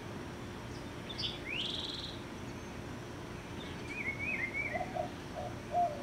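Northern mockingbird singing in separate phrases: a short high note and a rising buzzy phrase about a second in, a quick warbled up-and-down phrase about four seconds in, then a few lower notes near the end. A steady low hum lies underneath.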